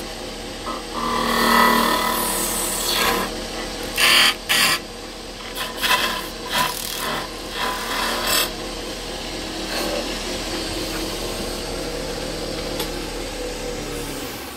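Wood lathe running steadily while a turning chisel scrapes and cuts the spinning wood in short, repeated strokes. It cuts off suddenly at the end.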